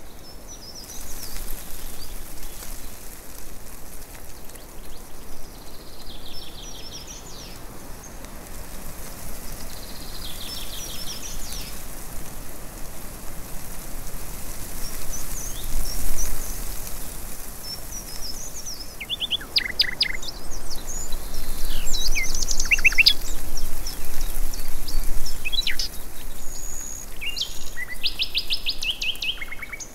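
Birds singing: a short fast trill comes every few seconds, and from about twenty seconds in there is a run of sharp, quickly falling notes, all over a steady high hiss.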